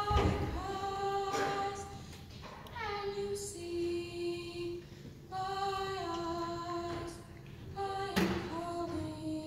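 Middle school choir singing a slow melody in held notes that slide from one pitch to the next, with a few sharp percussive hits: one about a second and a half in and one near the end.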